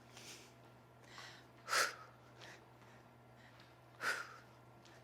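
A person's short, sharp exhales with the effort of repeated alternating lunges: two strong ones a little over two seconds apart, with fainter breaths between.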